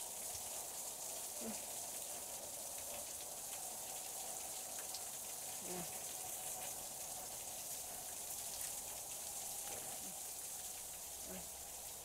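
Water falling and splashing behind the icicles of a mostly frozen waterfall: a steady rain-like hiss with faint scattered drips.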